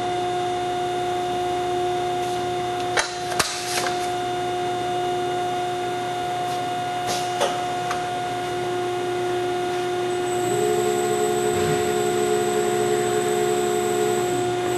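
Carell 305HV CNC section bending machine running a bending program on a 1¼-inch square tube. It hums steadily, with a few sharp clicks and knocks about three and seven seconds in. A second, higher drive tone joins about ten seconds in and stops about four seconds later.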